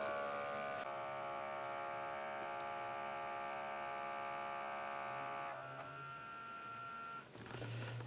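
OUTIN Nano portable espresso machine's pump buzzing steadily as it pushes hot water through the capsule during extraction. About five and a half seconds in the buzz drops and thins to a quieter single high tone, which stops shortly before the end.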